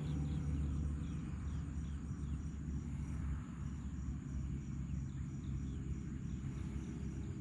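An insect chirping in an even rhythm, about four pulses a second, over a steady low rumble of outdoor ambience, with a few faint falling chirps in the first couple of seconds.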